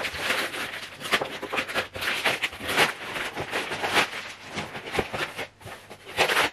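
Plastic film wrapping crinkling and crackling as it is torn and pulled off a cardboard parcel by hand, in rapid, irregular crackles.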